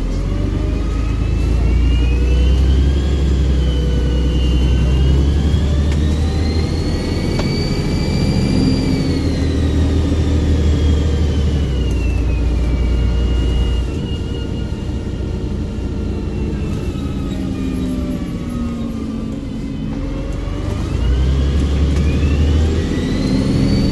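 Volvo Olympian double-decker bus's turbocharged diesel engine accelerating, with a loud turbo whistle. The whistle climbs in pitch to a peak about a third of the way in, falls away as the engine eases off, and rises again near the end.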